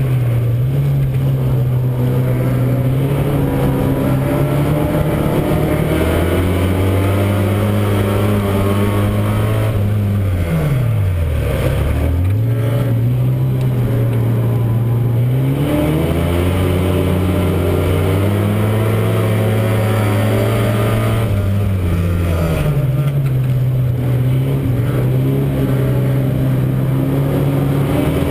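Euro Rod race car's engine at racing revs, heard from inside the car. The note holds high, drops sharply and climbs back about halfway through as the driver lifts off and accelerates again, and shifts once more near the end.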